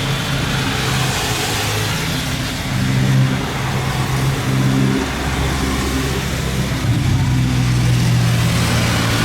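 Steady engine noise with a low hum that shifts in pitch a few times.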